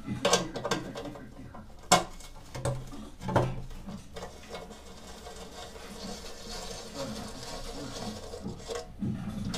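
Ratchet wrench working on the oil pan bolts: sharp metal knocks about three times in the first few seconds, then fine, fast ratchet clicking.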